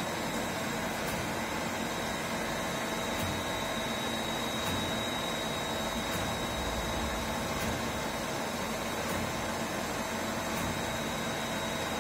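MAHO MH 1000 S CNC milling machine running under power, its rotary table slowly turning: a steady mechanical hum with a constant high whine over it.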